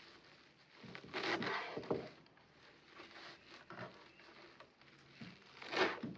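Rustling and scraping of things being handled, in short noisy bursts, the loudest from about one to two seconds in and again near the end.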